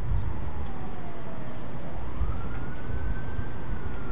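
Slow wailing siren, its pitch sliding down, then up, then slowly down again, over a steady deep rumble.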